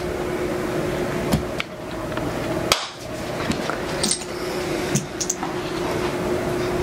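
A steady hum with a fixed low tone, under scattered light knocks and clicks; the sharpest knock comes a little before the middle.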